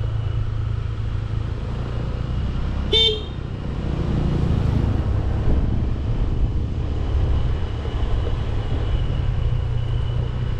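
Motorcycle running along a road with a steady low rumble of engine and wind. A vehicle horn gives one short toot about three seconds in.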